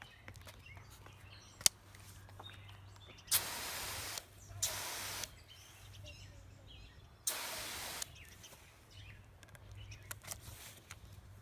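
Garden hose pattern nozzle squeezed in three short spurts of spraying water, each hiss starting abruptly and lasting about a second or less. A single sharp click comes shortly before the first spurt.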